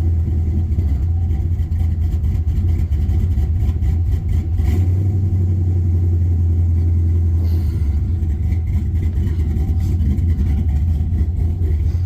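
LS V8 engine in a swapped Chevy pickup idling steadily, with a fuel-injection throttle body and a carburetor spacer fitted under its elbow.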